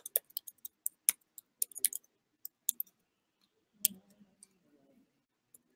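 Sharp, irregular clicks of a laptop being operated, about a dozen in the first three seconds, then one louder click with a dull thud just before the four-second mark.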